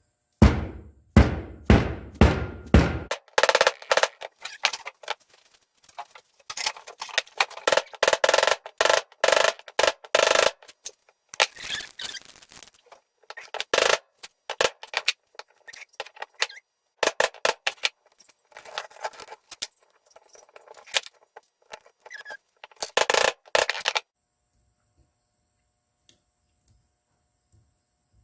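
Hand tools and metal parts of a brake slave cylinder being worked during a rebuild. There are about six sharp knocks in the first three seconds, then rapid scraping and clattering in spurts that stops abruptly near the end.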